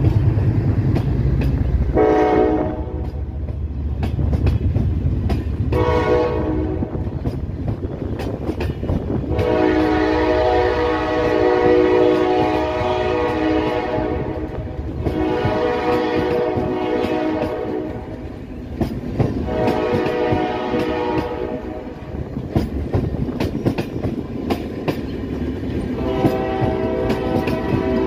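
Passenger train passing: the diesel locomotive's deep rumble fades in the first two seconds, then the coaches' wheels click over the rail joints. A multi-tone train horn sounds six times, two short blasts early on and longer ones of two to four seconds after that.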